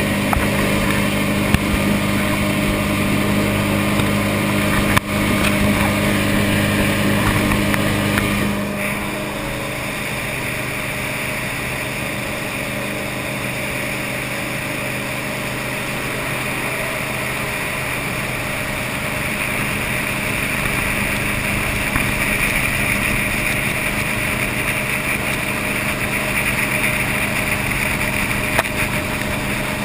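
V8 tunnel-hull jet boat running at speed, its engine a steady drone. About eight seconds in the engine tone drops away, leaving mostly the rush of water and air.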